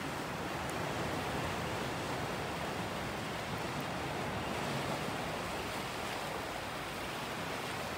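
Ocean surf washing against a rocky shore, a steady rushing hiss with no single wave standing out.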